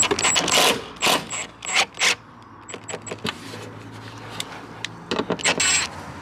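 Short sharp knocks and clicks of work on a plastic wheel-arch liner being fitted. There are several distinct strokes in the first two seconds and a quick flurry of clicks about five and a half seconds in.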